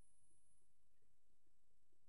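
Near silence: room tone with a faint steady high-pitched whine.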